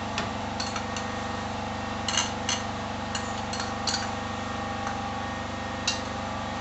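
A metal spoon clinking and tapping against a small bowl about a dozen times at irregular intervals as whisked yogurt is scraped out into a pan. Under it, a steady hum from a generator running in the background.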